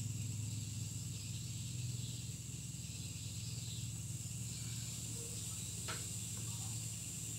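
Steady low background hum with a faint, thin high-pitched tone over it, and a single faint tick about six seconds in.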